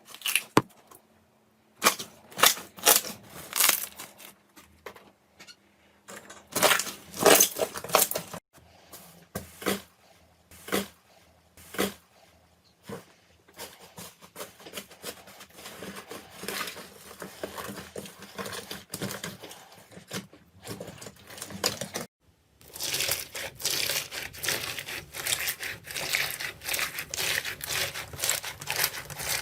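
Slime being squished and pressed by hand, with sharp crackles and pops in short bursts. About 22 s in, after a brief silence, the crackling turns dense and continuous.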